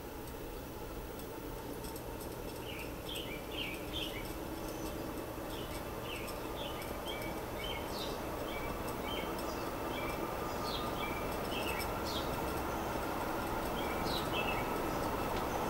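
Vintage late-1970s SMC Laguna 36-inch ceiling fan running and speeding up: its motor hum and blade whoosh grow steadily louder, and the hum rises slightly in pitch. A small bird chirps repeatedly in the background from a few seconds in.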